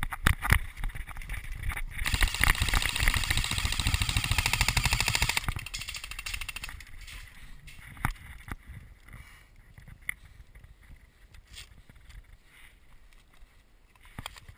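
Airsoft gun firing: a few sharp single shots at the start, then a long rapid full-auto burst of about three and a half seconds starting about two seconds in, followed by scattered single shots.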